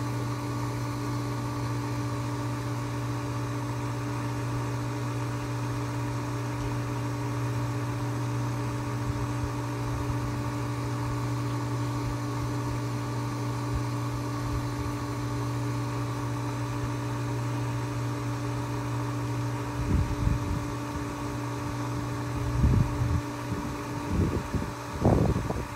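Above-ground pool sand-filter pump motor running with a steady electric hum. Near the end a few irregular low thumps and short noises come in over it.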